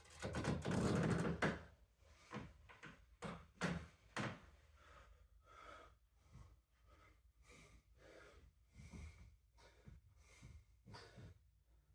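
A man breathing hard between workout sets, after a loud rustling thump in the first second and a few sharp knocks three to four seconds in.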